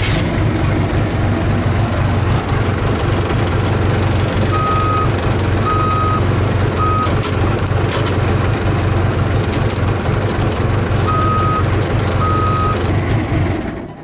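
Case backhoe engine running steadily while the forward-reverse shift lever is moved; its reverse alarm beeps three times about a second apart around the middle, the third cut short, then twice more near the end. The alarm shows reverse is now being selected, which the owner takes as the shift circuit fault being solved.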